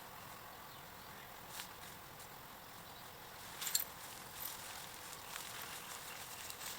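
Quiet outdoor background hiss with a few light clicks or knocks, the loudest a short cluster of clicks a little past the middle.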